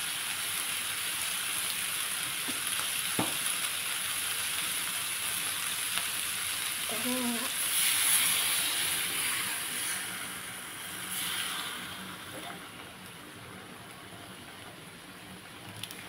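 Stir-fry of minced pork, tomato, onion and egg sizzling in a hot steel wok. About eight seconds in, water poured from a bowl hits the pan and the sizzle flares up, then dies down to a much quieter simmer.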